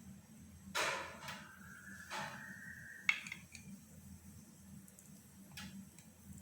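Pizza being cut on a plate: a utensil scrapes and clicks against the plate a few times, with a thin squeal lasting about two seconds in the middle.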